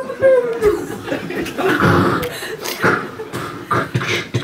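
A man making improvised vocal sound effects into a microphone: a falling hum at the start, then a run of short, breathy, hissing mouth noises.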